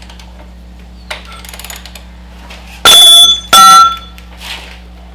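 Two loud metallic clanks about two-thirds of a second apart, each ringing briefly: hard metal tools or parts striking metal. They follow a few light clicks and rattles, over a steady low hum.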